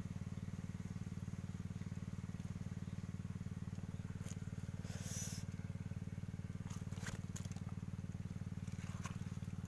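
Small engine running steadily at a constant throttle, a fast even low hum. A short hiss about halfway through and a few sharp scrapes and rustles near the end.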